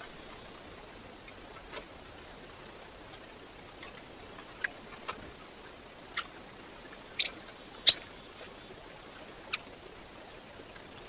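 Steady hiss with about seven short, sharp, high ticks at uneven intervals. The loudest two come close together about seven and eight seconds in. These are taps at a bird feeder.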